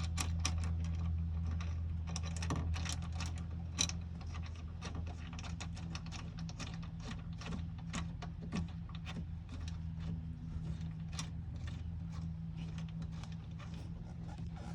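Hand ratchet wrench clicking quickly and irregularly while bolting a shifter down, over a steady low hum.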